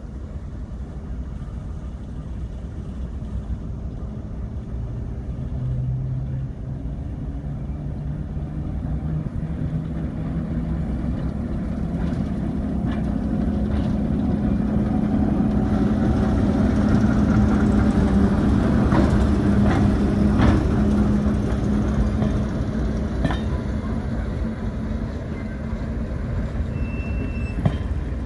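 Class 08 diesel shunter's English Electric six-cylinder engine running as the locomotive approaches and passes close by hauling coaches, growing louder to a peak about two-thirds of the way through and then fading. Sharp clicks from the wheels on the rail joints come in as the coaches roll past.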